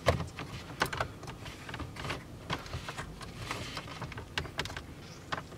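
Irregular light clicks and rattles of a car's plastic centre console trim and its wiring connectors being handled and pushed into place.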